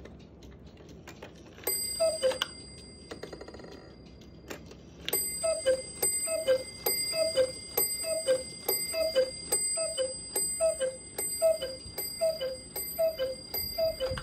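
Hönes eight-day chalet cuckoo clock striking as its hands are turned. First comes a single falling two-note cuckoo call with a bell ring, then a short whir of the movement. From about five seconds in, the cuckoo calls about a dozen times in steady succession, each call with another strike of the lady figure's bell.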